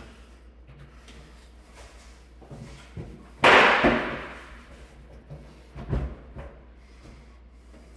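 Knocks and bangs from work on a clothes dryer's body: a few light knocks, then one loud bang about three and a half seconds in that rings out for about a second, and two more knocks near six seconds.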